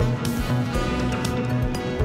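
Background music with a steady beat, about two beats a second, over sustained pitched notes.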